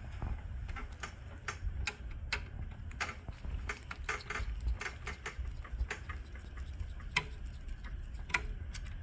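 Irregular light clicks and taps, a couple a second, from hands and tools working on the plastic parts around an HP Color LaserJet Pro 4201 laser printer's fuser, over a low steady rumble.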